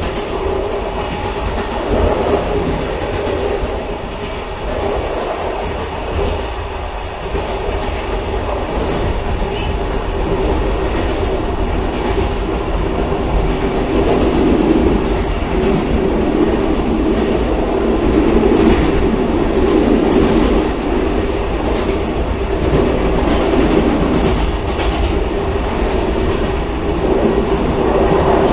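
Railcar running along the track: a steady rumble with the wheels' clickety-clack over the rail joints. A midrange drone grows stronger about halfway through.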